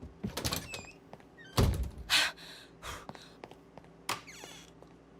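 Door being tried and thumped: a quick rattle of clicks, then two loud thumps about a second and a half and two seconds in, a smaller knock, and a short squeaky rattle near the end.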